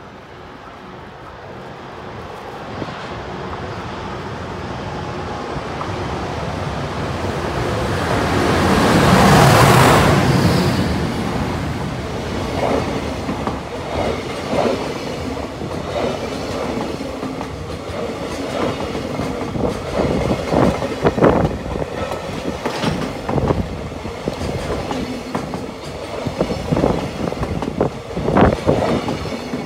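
JR Freight EH200 electric locomotive approaching and passing close by, loudest about nine to ten seconds in. A long train of container wagons follows, rolling past with repeated clacks and knocks of the wheels over the rail joints.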